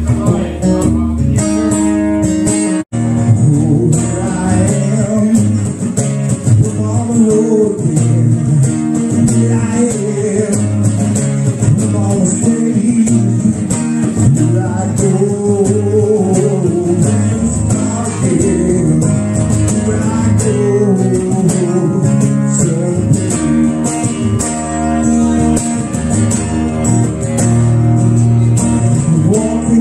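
Live blues band playing, with electric or acoustic guitar to the fore. The sound drops out for an instant about three seconds in.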